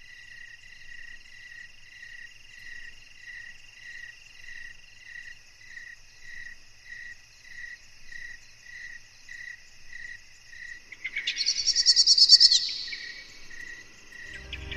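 Night chorus of crickets: a steady high trill under a chirp repeating about three times every two seconds, with a louder buzzing trill lasting about a second and a half near the end.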